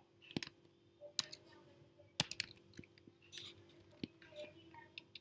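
Computer keyboard keystrokes: a dozen or so scattered, irregular clicks of slow typing, over a faint steady hum.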